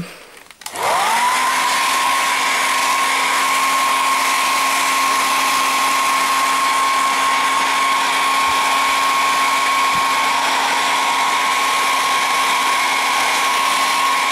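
A hair dryer switches on under a second in, its motor quickly spinning up to a steady whine over a rush of air, then runs on evenly at full speed. It is blowing heat onto a TV mainboard to bring on an intermittent heat-related fault.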